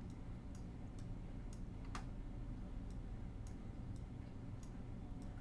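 Faint, short ticks about twice a second over a steady low hum.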